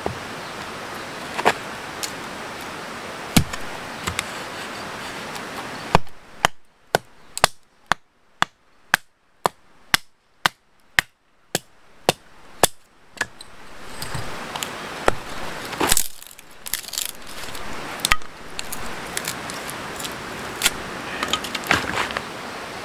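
Firewood being split with a hatchet: a run of about fifteen sharp wooden knocks, roughly two a second, in the middle, with scattered knocks and clatter of split wood before and after.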